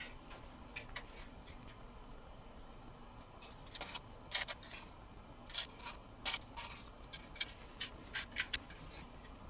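Faint, irregular clicking and crackling of dry bark-chip substrate as a young rock rattlesnake crawls across it. The clicks are sparse at first and come thicker from about four seconds in.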